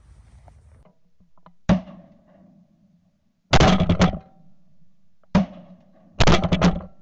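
Shotgun blasts from duck hunters firing at ducks flying overhead: a single shot, then a rapid volley of several overlapping shots, another single shot, and a second rapid volley near the end.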